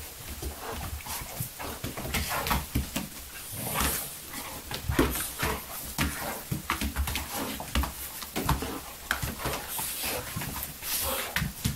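Two small dogs play-wrestling: short, irregular dog noises mixed with scuffling of paws and bodies on a vinyl floor.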